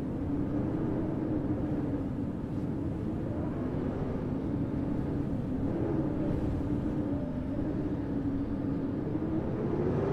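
City street ambience in a snowstorm: a steady low rumble with a slightly wavering drone running through it.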